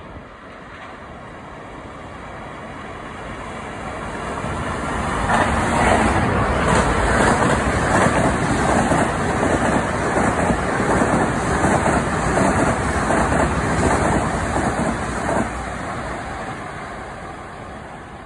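Passenger train passing close by on the tracks below, with steady wheel-on-rail rumble. It builds over the first few seconds, stays loud for about ten seconds, drops off sharply about fifteen seconds in, then fades as the train draws away.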